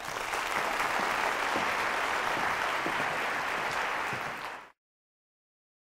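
Audience applauding at the close of a talk: a steady wash of clapping that fades and then cuts off to silence about four and a half seconds in.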